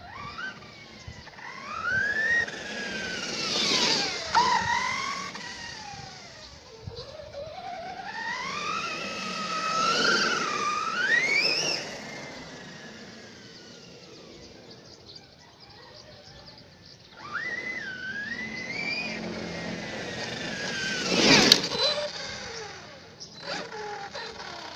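Redcat Kaiju RC monster truck's brushless electric motor whining in three runs, the pitch rising and falling as it speeds up and slows down. Near the end there is a sudden loud burst.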